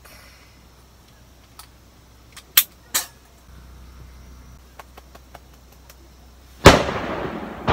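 A sudden, very loud outdoor bang, like a gunshot or blast, that echoes and dies away slowly, with a second bang right at the end; a startling sound that keeps recurring. Before it, two sharp clicks near the middle.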